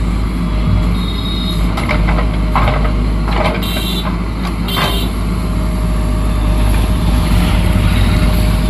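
JCB backhoe loader's diesel engine running steadily under load, with a few short sharper scraping or squeaking sounds from the working machine around the middle.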